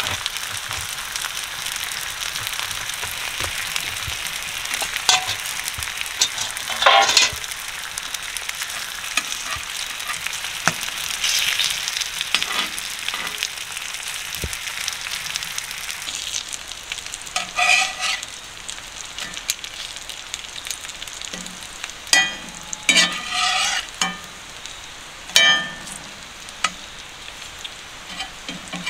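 Bacon sizzling in a cast-iron skillet on a small wood stove. The sizzling eases about halfway through, and a metal spatula scrapes and clinks against the pan several times as the strips are moved and turned.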